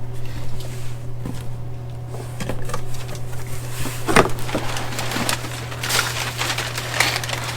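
Package being opened and handled: rustling and crinkling packaging with scattered knocks, one sharper knock about four seconds in, over a steady low hum.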